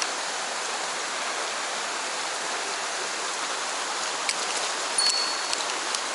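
Mountain stream rushing steadily. About five seconds in, a bear bell jingles briefly with a short high ring and a few clicks.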